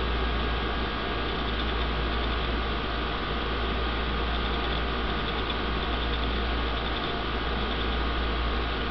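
Steady low hum and hiss of running aquarium equipment, with a few faint steady high tones.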